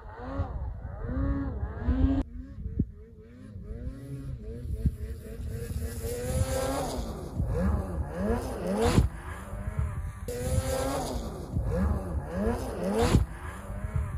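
Snowmobile engine revving up and down again and again as the sled climbs and carves across a snowy slope, its pitch swinging in quick rises and falls. Two sharp knocks come in the second half.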